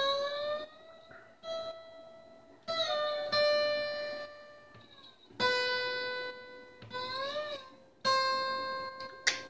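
Acoustic guitar being tuned: a single string plucked again and again, each note ringing for a second or more while its pitch slides up or down as the tuning peg is turned.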